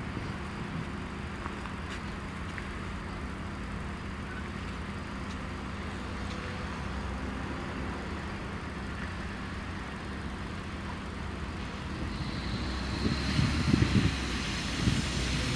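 LiAZ-5292 city bus running at low speed as it approaches, a steady engine hum over traffic noise. It grows louder near the end, with some rough low rumbling as it comes close.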